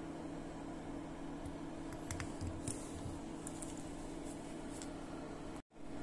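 Steady low hum with a few faint, light clicks and taps through the middle. The sound cuts out for a split second near the end.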